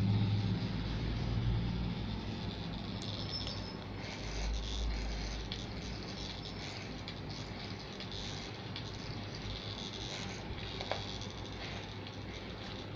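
Corded electric hair clipper humming steadily, louder in the first couple of seconds, while its blades trim a beard with a crackly rustle of cut hair.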